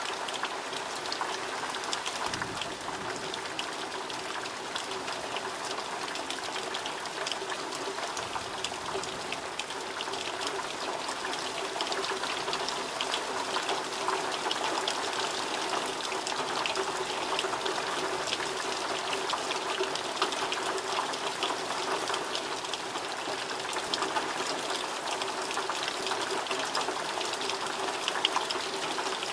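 Heavy rain falling steadily: a dense, even patter of countless drops, growing a little louder partway through.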